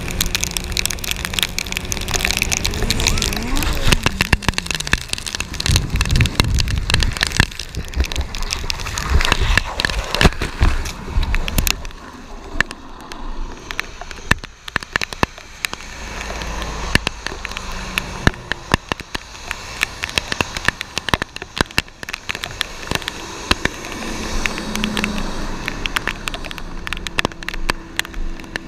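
Motorcycle engine running in heavy rain; about three seconds in its pitch jumps up and then drops away as the bike goes down, followed by several seconds of loud scraping and knocking as bike and riders slide on the wet asphalt. After that, rain patters, with sharp ticks of raindrops hitting the helmet camera.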